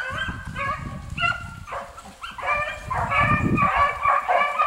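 Hunting hounds baying as they run a hare's trail, several dogs' voices overlapping in a continuing chorus that dips about two seconds in and then comes back louder.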